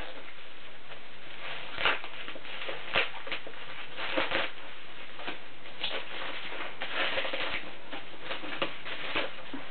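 Cardboard and paper packaging being handled: a few separate sharp taps and knocks, then a cluster of rustling and tapping near the end, over a steady hiss.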